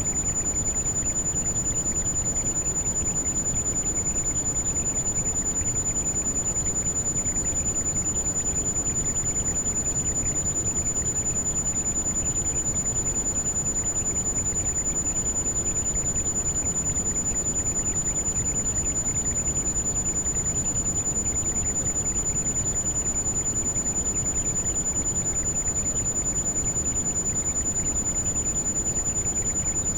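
Heavy rain falling steadily, with a single high-pitched pure tone held steady above it: a tinnitus sound-therapy tone layered over the rain.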